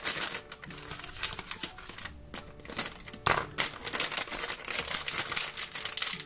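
Foil-and-plastic toy blind bag crinkling as hands squeeze it and pull it open, a fast run of small crackles with a brief pause about two seconds in.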